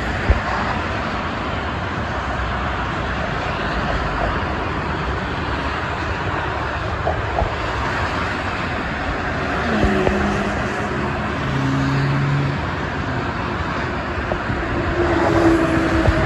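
Steady multi-lane expressway traffic: tyre and engine noise of cars and trucks passing. A passing vehicle's engine adds brief humming tones about ten seconds in and again near the end.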